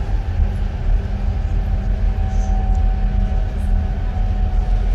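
Passenger train running, heard from inside the carriage: a steady low rumble with a steady high hum over it.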